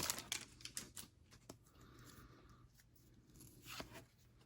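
Faint rustling and light clicks of a foil baseball card pack and its cards being handled, with a short soft crinkle about two seconds in.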